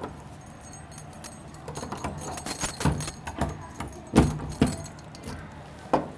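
A bunch of keys jangling as a key is worked in a wooden door's lock, with several sharp clicks from the lock.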